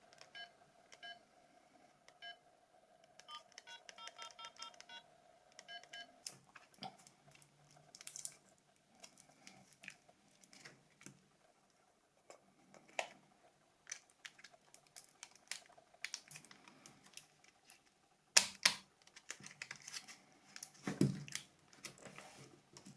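Nokia 282 mobile phone sounding short electronic keypad beeps for the first six seconds or so as its buttons are pressed. After that come scattered plastic clicks and knocks from the phone being handled.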